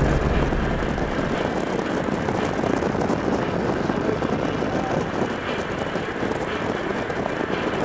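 Steady rushing wind and road noise from a car moving at speed. A low hum fades out within the first second.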